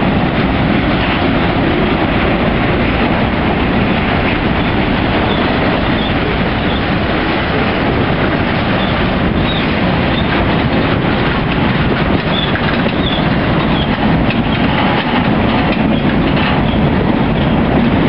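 Freight train cars, covered hoppers and centerbeam flatcars, rolling past close by. A steady loud rumble of steel wheels on rail, with the clickety-clack of wheels over rail joints.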